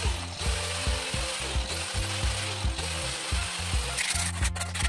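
Angle grinder with a sanding disc sanding the wooden hatch, the noise briefly dropping now and then. About four seconds in it gives way to the scratch of sandpaper rubbed by hand over the wood. Background music runs underneath.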